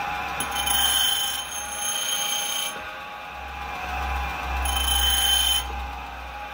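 Tool and cutter grinder, driven by a treadmill DC motor, grinding an end mill. A high-pitched ringing whine comes twice as the cutter meets the wheel: for about two seconds near the start and again, more briefly, about five seconds in. Under it the motor and wheel run with a steady low hum.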